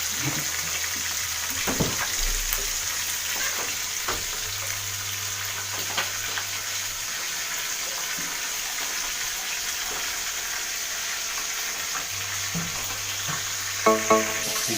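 Fish frying in hot oil, a steady sizzle with a few faint clicks and pops. Music starts near the end.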